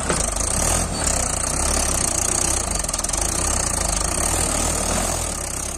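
Mahindra 575 DI tractor's four-cylinder diesel engine running hard under heavy load, straining to pull a loaded trolley out of soft sand. It gets louder just after the start and then holds steady.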